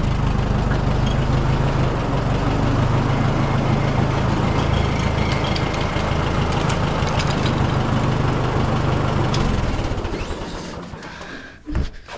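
Tractor engine idling very slowly in gear, below about 400 RPM, with a steady low beat. Its sound drops away from about ten seconds in, and a single thump comes just before the end.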